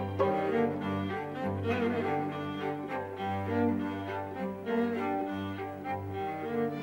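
Background music of bowed strings playing slow, held notes over a low bass line.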